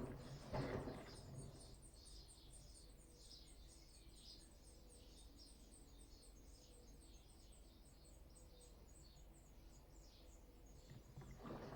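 Bosch WAT286V0 washing machine between drum turns during its 90 °C boil wash: the drum's tumbling stops about a second in, leaving near quiet with a faint low hum and a rapid string of faint high ticks, and the tumbling starts again near the end.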